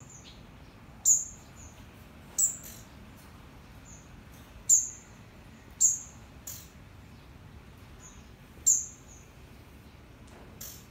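Caged Thai squirrel giving sharp, high-pitched alarm calls, five loud ones at uneven intervals with fainter ones between, each cut short. This calling is the alarm that the owner takes as a warning of a snake in the house.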